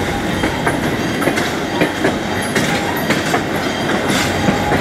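Train wheels rolling along the track: a steady rumble and hiss broken by frequent clacks as the wheels cross rail joints.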